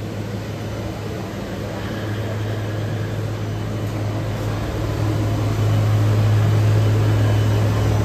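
Steady low machine hum with a faint wash of noise over it, growing louder about five seconds in.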